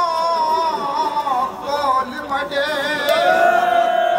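A voice reciting a noha, a Shia lament, in a wavering, drawn-out melody, with a long held note from about three seconds in.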